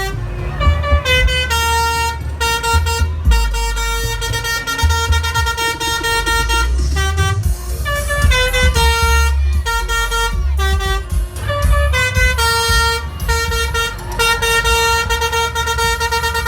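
Telolet 'basuri' multi-tone horn of an SJM Trans bus playing a tune: a string of steady, high horn notes stepping up and down in pitch with short breaks between phrases, over a low rumble.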